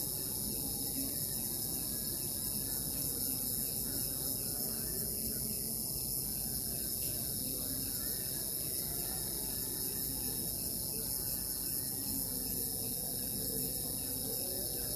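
Crickets chirping in a steady, continuous high-pitched chorus that does not let up.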